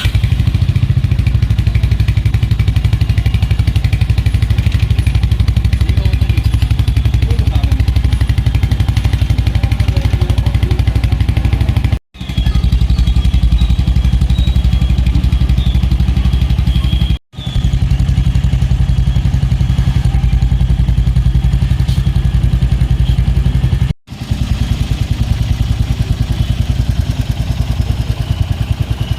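Royal Enfield Hunter 350's single-cylinder engine idling steadily through its exhaust, an even fast pulsing. The sound drops out briefly three times.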